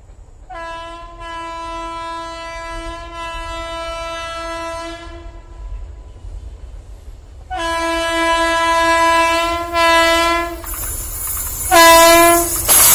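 WAP7 electric locomotive's horn sounding three times as the train approaches: two long blasts, the first about five seconds and the second about three, then a short one near the end. In the last two seconds the noise of the oncoming train rises and grows loud.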